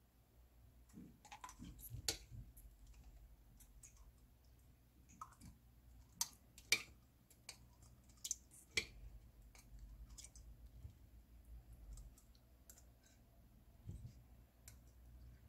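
Small metal spoon clicking against a ceramic plate and an eggshell while scooping soaked rice into the shell: faint, scattered clicks and taps, with a few sharper ones in the middle.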